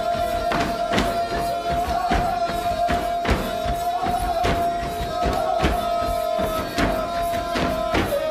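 A bagpipe holds a steady, slightly wavering high note while folk dancers stamp their feet about twice a second.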